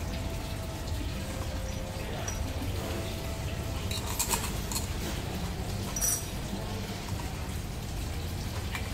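A metal teaspoon clinking lightly against a silver sugar bowl and a glass tea cup: a few clinks about four seconds in and one more about six seconds in, over a steady low background hum.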